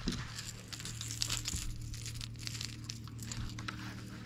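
Bow-mounted electric trolling motor humming steadily, under scattered crackling and rustling of handling close to the microphone.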